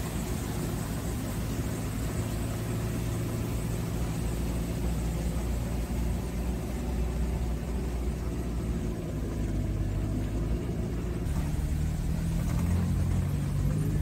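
Maruti Gypsy 4x4 being driven, its engine running steadily under road noise. The engine note changes about eleven seconds in and grows slightly louder toward the end.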